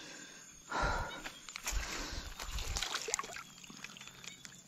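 Shallow water splashing and sloshing as a juvenile giant snakehead (toman) is lowered into it on a lip grip and released, starting with a burst of splashing about a second in, then smaller splashes and drips.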